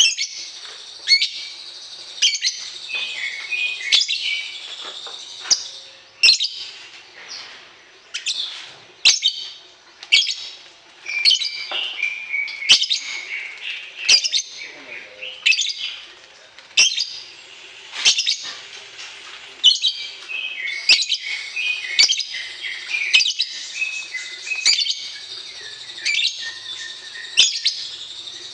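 Songbird singing in a rapid run of sharp, high chirps and short trills, coming every second or so without pause: birdsong played to a young caged bird to draw a response.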